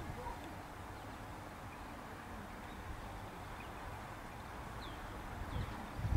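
Quiet outdoor background: a low steady rumble with a few faint bird chirps, the rumble growing slightly near the end.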